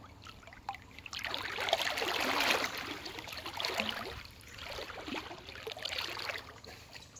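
River water swishing and splashing close by in three surges, as something moves through it, with small drips and clicks in between.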